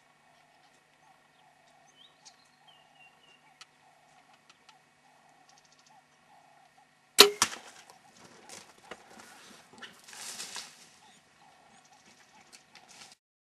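A bow shot at an impala about seven seconds in: one sharp, loud crack of the bow's release and the arrow. It is followed by a few seconds of irregular rustling and scuffling.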